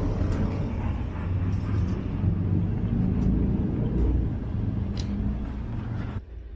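City street traffic: a steady low rumble of passing cars and buses. It cuts off suddenly near the end.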